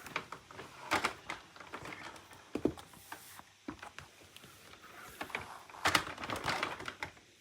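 Scattered clicks, knocks and rustles of a vacuum cleaner and its parts being handled and set in place, with a cluster of knocks about six seconds in.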